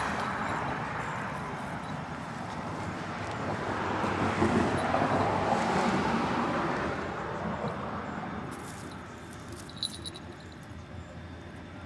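A passing vehicle, its rushing noise swelling to a peak about halfway through and then fading away, with a few faint clicks near the end.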